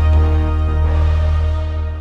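Background music: a held chord over a heavy, steady bass, fading out near the end.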